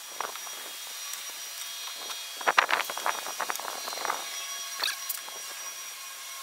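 Metal clicking and scraping of a propane quick-disconnect hose coupling being pushed and worked onto a gas grill's inlet fitting. The clicks come in a dense cluster about halfway through. The coupling won't seat, which the owner suspects is a stuck check valve inside the fitting.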